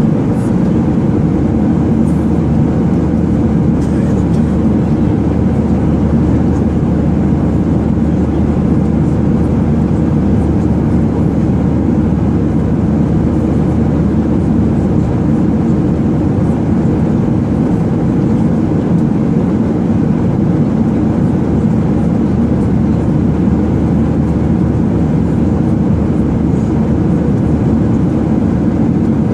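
Airliner cabin noise in flight: a steady, dense low roar of engines and airflow with a constant low hum, unchanging throughout.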